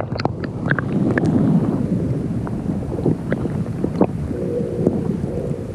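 Sea water sloshing and splashing around a kayak, with irregular sharp splashes and wind noise on the microphone.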